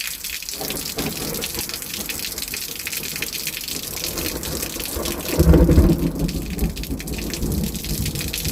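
Heavy rain pouring steadily, with a short low rumble of thunder about five seconds in.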